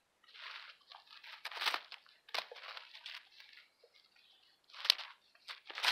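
Dry leaf litter and twigs on the forest floor crunching and rustling as someone moves through them, in irregular bursts, with a sharp snap about five seconds in.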